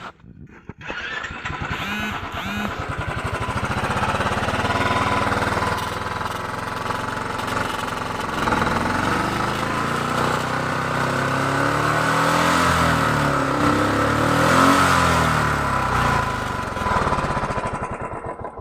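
Royal Enfield Thunderbird 350X's single-cylinder engine starting under a second in, idling, then revved up and down several times before it is shut off near the end. This is a test run after rubber washers were fitted under a plate to stop a metal-on-metal rattle against the chassis.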